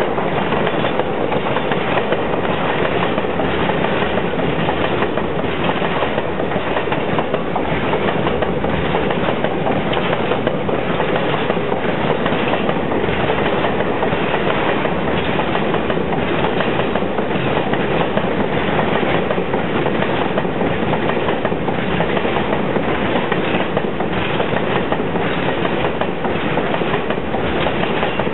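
Container freight train rolling past at close range: a steady rumble of wagon wheels on the rails with a regular clickety-clack as the wheels cross the rail joints.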